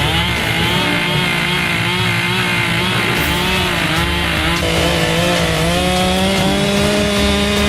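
Chainsaw engine running under load while cutting into a tree. Its pitch wavers through the first half, then rises a little and holds steady.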